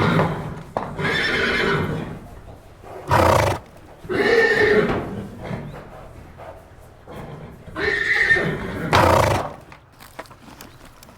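A horse whinnying several times in a row: long pitched neighs, broken by two short, loud, noisy blasts about three seconds in and near the end.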